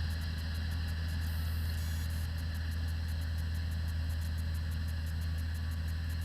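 Massey Ferguson 1135 tractor's six-cylinder diesel engine running steadily as a deep, even drone, under load from the PTO-driven round baler.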